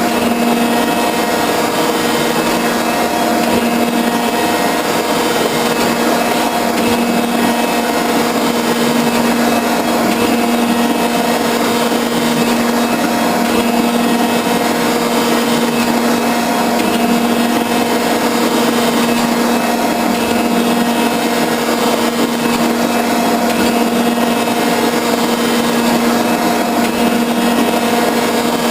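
Metal shaper running steadily through a finishing cut on a steel bar: a constant machine hum with an unchanging pitch over a steady cutting noise.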